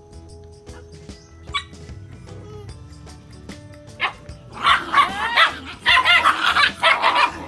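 Puppies yipping and barking: a couple of short yelps, then a quick, loud run of high-pitched yips in the second half, over background music.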